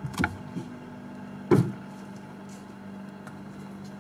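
Refrigerator door being handled and opened: a few light knocks, then a louder thud about one and a half seconds in, over a steady low hum.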